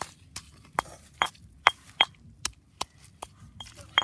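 Stone pestle pounding chopped garlic in a stone mortar: sharp, irregular knocks about two or three a second, some with a brief stony clink.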